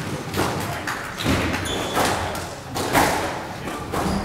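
Squash rally: the rubber ball is struck by racquets and hits the court walls, a sharp knock about once a second, with a brief shoe squeak on the wooden floor.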